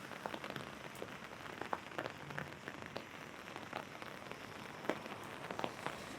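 Rain falling on an umbrella: a steady patter with heavier drops striking the canopy at irregular moments.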